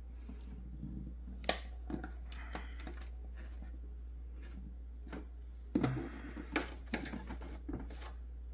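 Flathead screwdriver clicking and knocking against the Snoo base's plastic center lock as it is pressed down and twisted to unlock it: scattered sharp clicks, bunched together about six seconds in.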